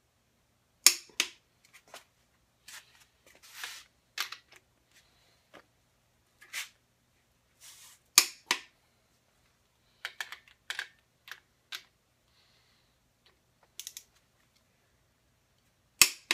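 Click-type torque wrench tightening the cylinder-head stud nuts on a Ford 302 V8, its head giving a loud sharp click as each nut reaches the set torque, three times about eight seconds apart. Quieter ratcheting clicks and metal clinks fall between them as the wrench is reset and moved to the next nut.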